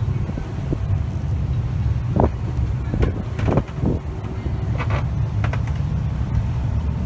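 Wind rumbling on the microphone aboard a moving boat, with a handful of short, sharp crackles and knocks in the middle.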